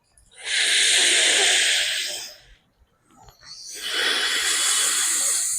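A man breathing hard through one nostril in alternate-nostril breathing (anulom vilom pranayama). There are two long, hissing nasal breaths, the first about two seconds long and the second longer; the second is drawn in through the left nostril.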